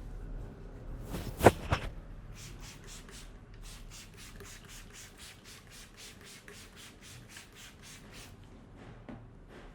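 Hands rubbing briskly over a person's scalp and hair during a head massage, in quick regular strokes of about four a second, after a few sharp hits about a second and a half in.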